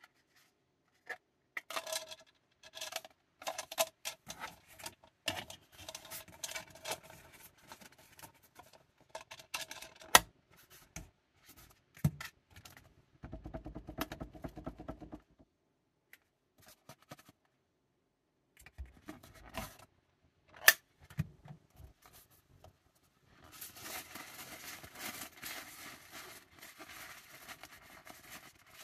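Handling sounds of a 3D-printed plastic handle and a fabric folding fan. First come scattered clicks and taps as the handle is pressed onto the fan's wire rim. Midway, the fan is waved for about two seconds, a steady rush with a fast regular pulse, and near the end there is a dense rustling as the nylon fan is twisted and folded up.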